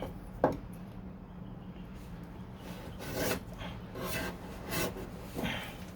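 Hand scraper scraping old sealant goop off a car door in several separate strokes, with a sharp tap about half a second in, over a steady low hum.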